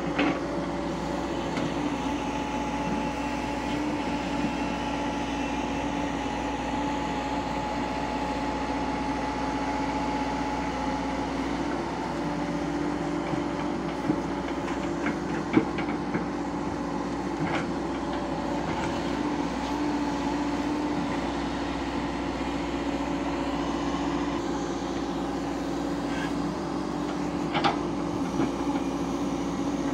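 Hyundai 140 crawler excavator's diesel engine running steadily under hydraulic load as it loads a tipper truck, with a few short knocks as bucketfuls of sand land in the truck's steel body.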